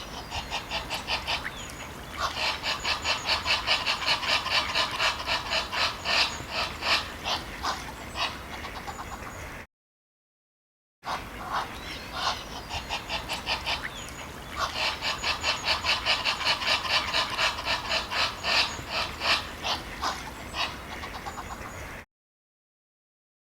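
Ducks quacking in a fast, dense run of short calls, several a second. The run breaks off into a second and a half of dead silence and then plays again just as before, ending in silence near the end.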